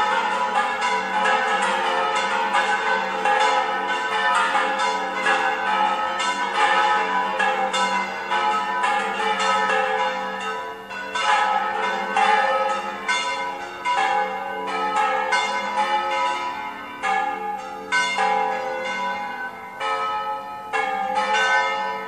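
A festive peal of the several church bells in the bell tower of the Mezquita-Catedral de Córdoba: many bells struck in quick, irregular succession, their tones ringing on and overlapping, with a steady low hum from the largest bell underneath.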